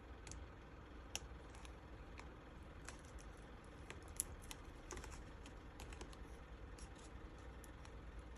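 Faint, irregular small clicks and taps of hands handling a laptop's replacement LCD panel and plugging in its display cable connector, with one sharper click about four seconds in.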